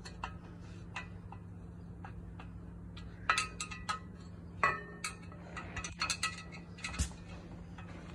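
Screwdriver tightening screws into a metal cup holder bracket on a steel rack upright: scattered metallic clicks and clinks, a few of them ringing briefly, over a steady low hum.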